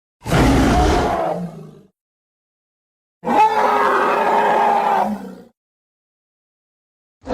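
Gorgosaurus roar sound effects, played one after another with dead silence between them: a roar of about a second and a half that trails off, then a longer one of about two seconds, and a third beginning at the very end.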